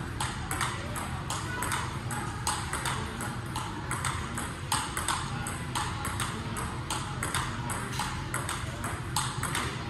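Table tennis ball struck back and forth with paddles and bouncing on the table: a steady run of sharp clicks, two or three a second, over a low steady hum.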